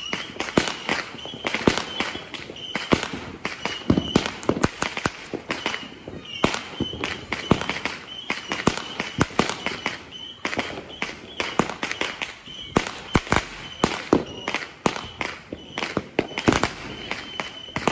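Fireworks going off: a dense, irregular string of sharp bangs and crackles, some louder pops standing out among many smaller ones.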